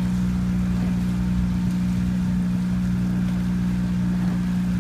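Outboard motor of a coaching launch running at a steady speed, an even hum that does not change in pitch.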